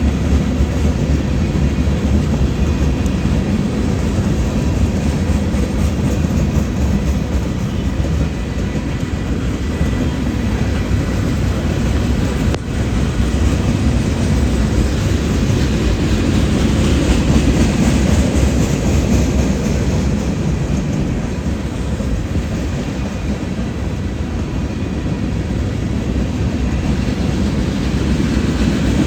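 Union Pacific freight train's cars rolling past, a steady noise of wheels on the rails.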